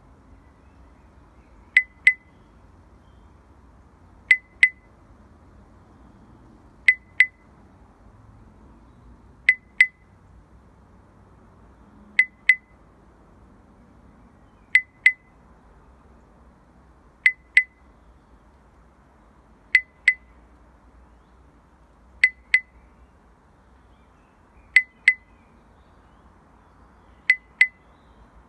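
Short, high, glassy clinks coming in pairs, a double beat like a slow heartbeat, repeating evenly about every two and a half seconds over a faint low background noise.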